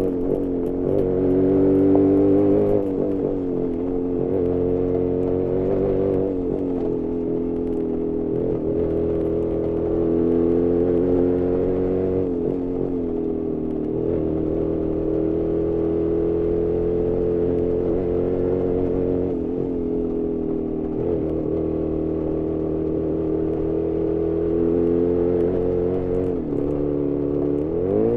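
Jawa 350 two-stroke parallel-twin motorcycle engine running under constant throttle changes, its pitch wandering up and down and dipping sharply near the end. The engine is running very lean and short of power, with worn exhaust baffles.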